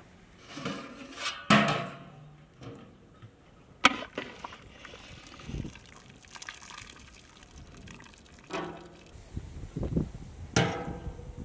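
A large metal cooking pot of boiled goat intestines being opened and ladled: a few sharp metal clanks from the lid and a steel ladle, with water splashing and dripping as pieces are lifted out of the boiling liquid.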